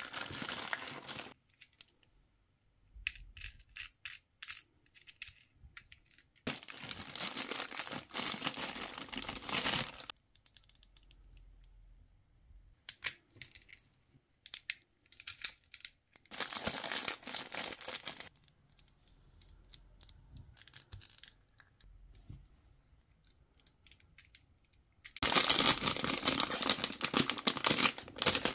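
Crinkly plastic wrap and packaging rustling in several bursts as it is peeled off small plastic toy figures, with small clicks and taps of hard plastic pieces being handled in between. Near the end a foil blind bag crinkles loudly as it is torn open.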